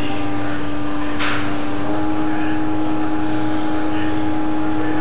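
Stepper motors of a CNC hot-wire foam cutter whining steadily as the machine drives through a cut, the pitch stepping up slightly about two seconds in. A brief hiss just over a second in.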